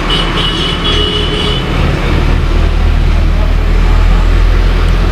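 Steady, loud background rumble with a strong low end, like road traffic, with a few faint tones in the first second and a half.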